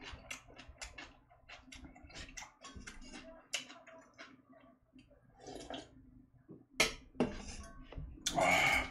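Close-miked eating sounds: a string of short, wet chewing and mouth clicks, with a louder knock about seven seconds in and a brief noisy burst near the end.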